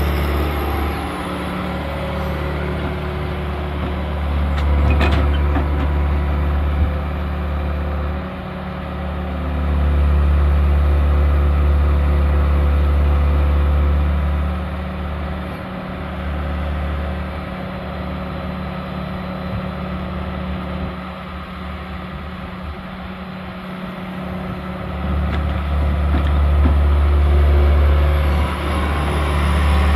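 John Deere 120 excavator's diesel engine running as the machine works its boom, bucket and swing. The low engine note swells for several seconds at a time as it takes load, then eases back. There is one brief sharp clank about five seconds in.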